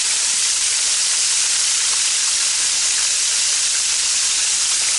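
Flour-coated alligator meat frying in hot grease in a cast iron pan: a steady, loud sizzle.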